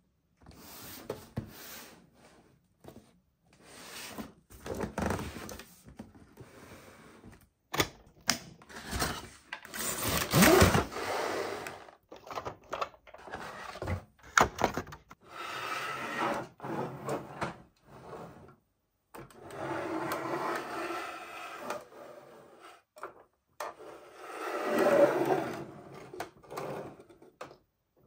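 Toys and their packaging being handled: irregular rustling and scraping with sharp clicks, in short spells broken off by abrupt silences.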